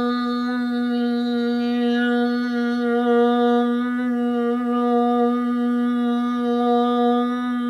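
A man humming one low note with his mouth closed, held steady at the same pitch, a meditation hum.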